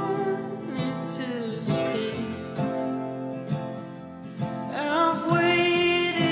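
Background music led by acoustic guitar, with a sung melody.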